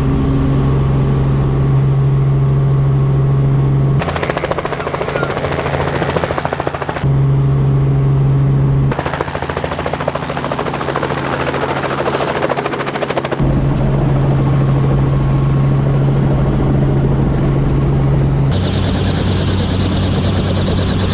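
Helicopter in flight, in several abruptly cut clips. A steady low drone alternates with stretches of loud rapid chopping from the rotor blades.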